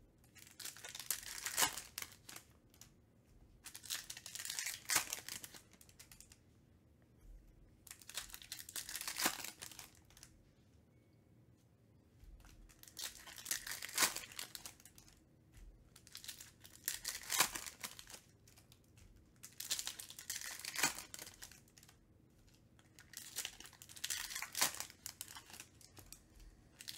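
Topps Chrome trading-card pack wrappers crinkling and tearing as packs are opened one after another, in repeated bursts of rustling a couple of seconds long with short quiet gaps between.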